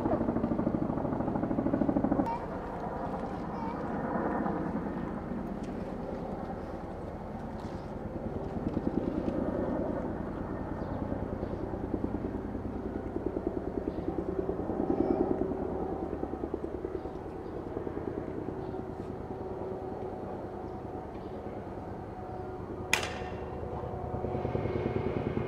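A motor running with a fast, even pulse, its level swelling and easing, and one sharp click near the end.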